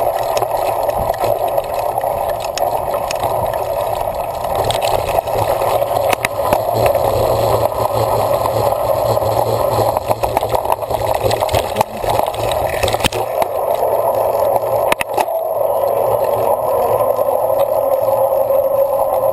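Steady rushing wind and tyre noise from a cyclocross bike being ridden hard over the course, with rattles and a few sharp knocks from bumps.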